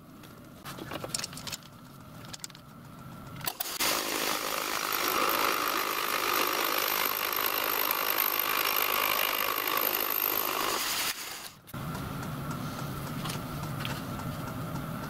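Milling machine's fly cutter cutting across a metal plate held in a vise: a loud, steady cutting noise from about three and a half seconds in until about eleven seconds. Before it come light clicks of the work being set up; after it the sound drops to a lower steady hum with a few clicks.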